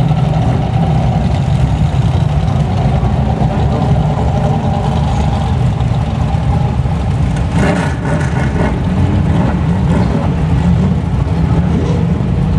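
BriscaF1 stock cars' V8 engines running steadily as the cars circulate the shale oval, a loud, continuous low engine rumble.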